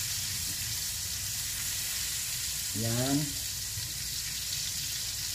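A block of butter sizzling steadily as it melts in hot oil in a stainless steel pan.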